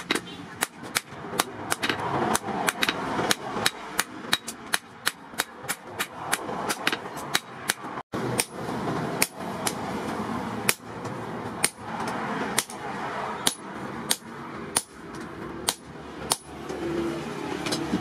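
Hand hammer striking a red-hot steel knife blank, forged from a broken disc brake, on an anvil: a steady run of sharp metallic blows, about two a second, slowing to about one a second in the second half.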